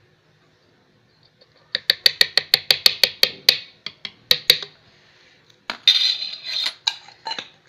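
Steel spoon tapping quickly against the rim of a blender jar, about a dozen sharp clinks in under two seconds, then two more, then a short scraping clatter, knocking baking soda off the spoon into the jar.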